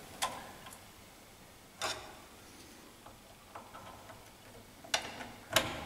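A few faint, scattered clicks and taps, about five in all, from a screwdriver and a cable plug knocking against the parts inside an open smoke detector's housing as the plug is lined up with its connector.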